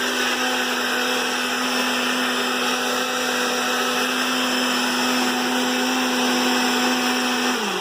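NutriBullet blender running steadily, its motor grinding a thick smoothie with ice, fruit, carrots and nuts. Near the end the motor's pitch drops as it slows.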